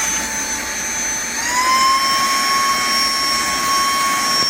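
Cordless handheld vacuum's motor running with a steady high whine. About a second and a half in, the pitch rises and holds at a higher speed.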